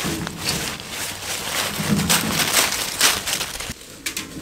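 Empty metal wheelbarrow pushed over a thick layer of dry fallen leaves: the leaves crunch and rustle under the wheel and footsteps, louder in the middle.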